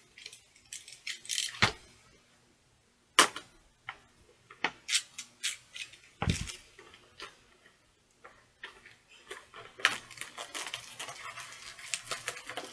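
A boxed toy figure's packaging being opened by hand: scattered clicks, taps and scrapes of cardboard and plastic, then from about nine seconds in a dense run of crinkling and rustling as the plastic is worked loose.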